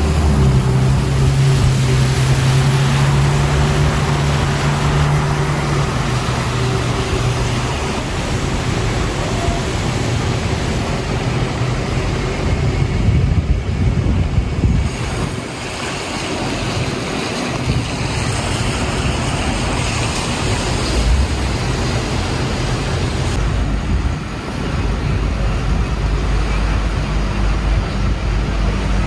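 City street traffic: vehicles running close by, with a steady low engine hum in the first few seconds and again near the end.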